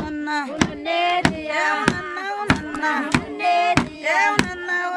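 Traditional Barbaig wedding song: voices chanting over a sharp, regular beat struck about one and a half times a second.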